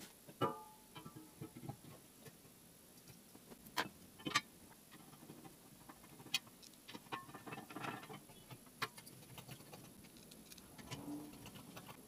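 Scattered light metallic clicks and taps as a steel receiver tank is set into a welded steel frame and fastened with bolts and a screwdriver; a few knocks stand out in the middle.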